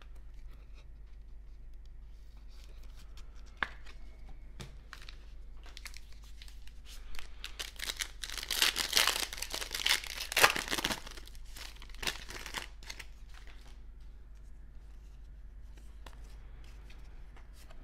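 Foil wrapper of a baseball card pack being torn open and crinkled by hand, loudest for a few seconds around the middle. Lighter rustling and card handling come before and after.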